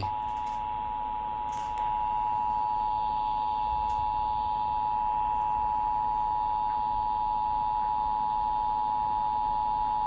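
Emergency Alert System attention signal: two steady tones sounding together as one harsh alarm, broadcast over a radio station. It heralds a severe thunderstorm warning, and it gets slightly louder about two seconds in.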